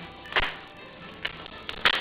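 Background music with faint steady tones, broken by three short sharp knocks, the loudest near the end.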